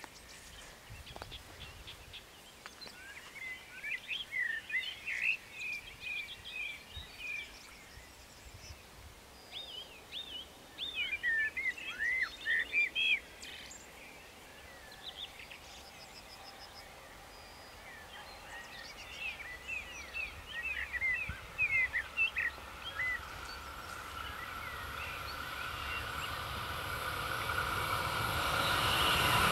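Songbirds chirping and singing in several bursts. Over the last five seconds or so a rumble and hum rise steadily as an Alstom LINT 41 diesel railcar approaches.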